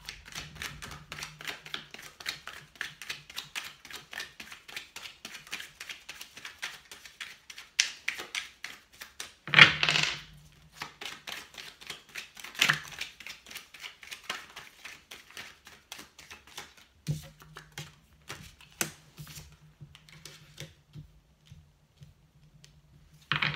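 A deck of tarot cards being shuffled by hand: a rapid run of light card clicks and flicks, with a louder swish about ten seconds in, thinning to scattered clicks over the last several seconds.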